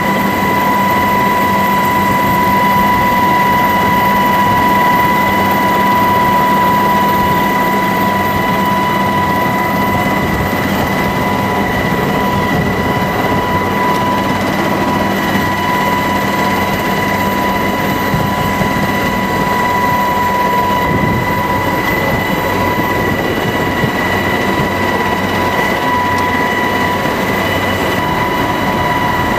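Helicopter cabin noise in flight with the door open: a loud, steady drone of the rotor and engines, carrying a constant high-pitched whine. A lower hum under it drops away about two-thirds of the way through.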